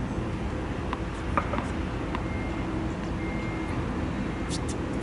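Steady low outdoor background rumble, with a few faint taps about a second in.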